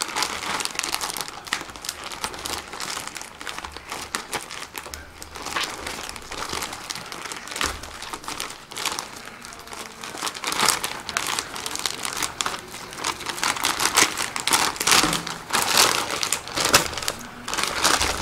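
Plastic courier mailer bag crinkling and crackling as hands pull and work it open; the rustling gets louder about halfway through.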